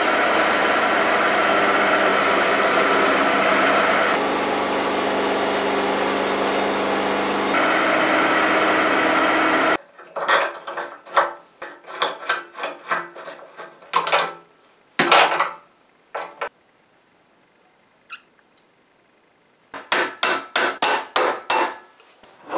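Metal lathe running steadily while turning a white plastic wheel, which cuts off sharply after about ten seconds. Then come scattered clicks and knocks as the new wheel is handled onto the pallet truck's fork end, and near the end a quick run of hammer taps, about three a second, driving its axle pin in.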